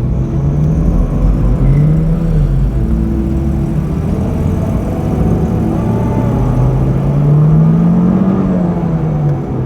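2006 Honda S2000's 2.2 L four-cylinder F22C1 engine running at moderate revs while driving, its pitch rising and falling a few times with the throttle, over steady road rumble.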